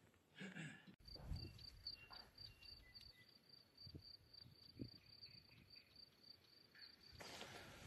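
Faint, steady high-pitched insect chirring, typical of a cricket in summer grass, with a few short low thumps and a rush of noise near the end.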